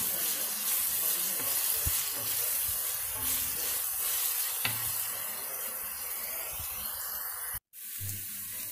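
Chopped onions sizzling in hot oil in a steel kadai while being stirred with a wooden spatula, which knocks lightly against the pan a couple of times; the onions are being fried down towards golden brown. The sound cuts out suddenly for a moment near the end.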